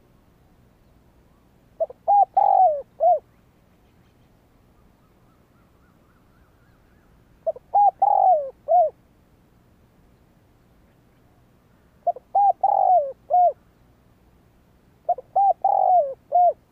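Spotted dove cooing: four phrases a few seconds apart, each a quick run of four or five low coos with one longer, falling note near the end.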